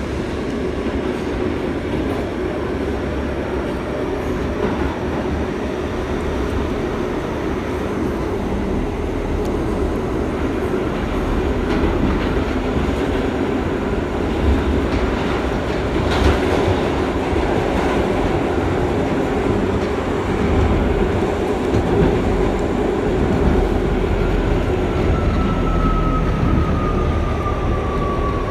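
R68 subway car running along the track, heard from inside the car: steady wheel and rail noise with some clickety-clack. A thin whine sets in near the end and falls slightly in pitch.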